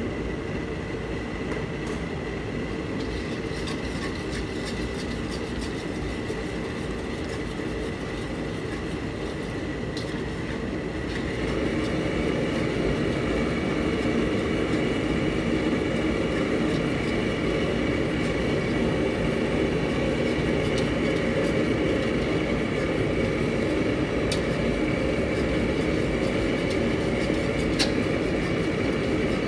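Steady roar of a commercial kitchen gas range and its exhaust, stepping up in loudness about eleven seconds in.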